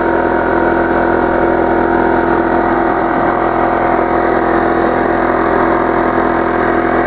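A motor running steadily at one constant pitch, with a strong hum.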